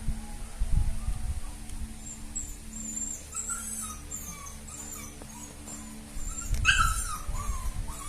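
Young puppies whimpering and squeaking in short, very high-pitched cries, with one louder yelp about two-thirds of the way through, over low thumps and rustling.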